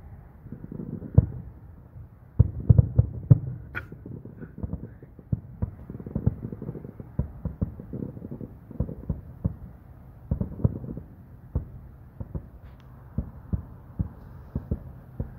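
Fireworks going off in the distance: an irregular string of dull bangs and pops, sometimes several a second, with the biggest cluster about three seconds in.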